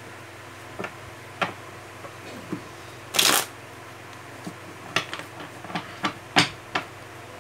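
A tarot deck being shuffled by hand: a few short card snaps, then a longer riffling burst about three seconds in, the loudest sound, and a quick run of sharp flicks near the end.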